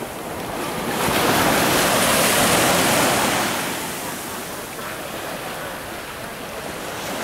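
Small surf breaking and washing up a sandy beach: a steady rush of water that swells about a second in and eases off after about three seconds.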